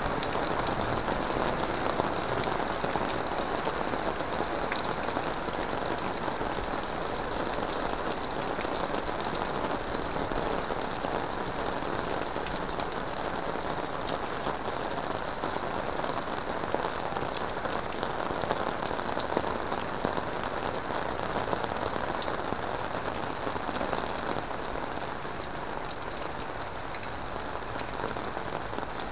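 Heavy rain falling steadily, a dense hiss with many close drops ticking, easing slightly in the last few seconds.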